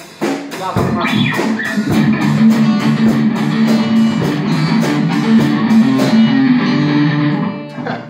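A small band jamming during a sound check: the drum kit keeps a fast, even beat of about four cymbal strokes a second under acoustic and electric guitars and a keyboard holding notes. The drums stop about six seconds in, and the music falls away near the end.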